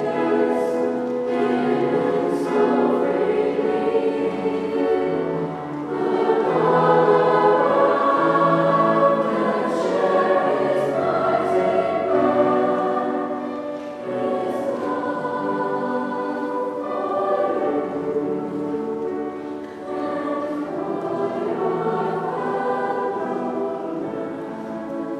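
Mixed choir of young men and women singing sustained chords, the sound swelling to its loudest around the middle and softening toward the end.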